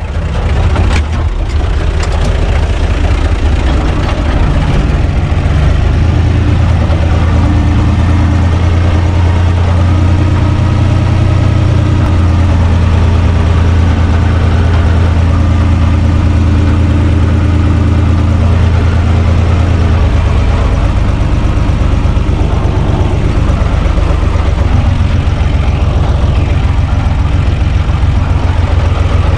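UTB 445 tractor's four-cylinder diesel engine idling steadily, its note growing stronger about five seconds in and easing back about twenty seconds in.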